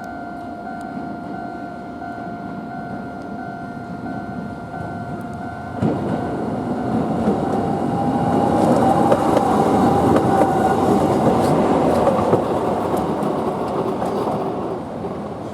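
An Arakawa Line tram crossing a level crossing: the crossing's warning bell rings steadily, then about six seconds in the tram's wheels give a sharp knock and it rumbles past, loudest a few seconds later and fading near the end.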